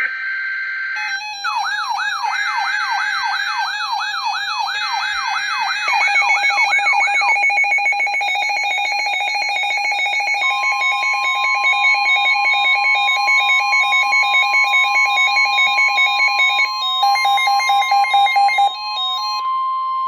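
Several NOAA weather alert radios going off together for a Winter Storm Warning. A brief burst of SAME header data comes first. One radio then sounds a rising, whooping siren about twice a second, and others beep rapidly. About ten seconds in, the steady 1050 Hz NWS warning alarm tone starts and holds.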